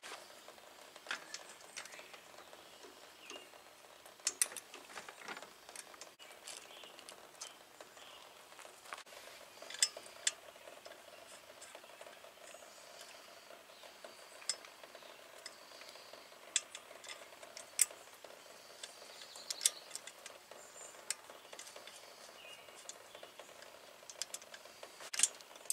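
Scattered light metallic clicks and taps as a rebuilt Shimano coaster-brake rear wheel is fitted into a bicycle frame and its hardware at the chainstay is fastened by hand. A faint steady hum sits underneath from about nine seconds in.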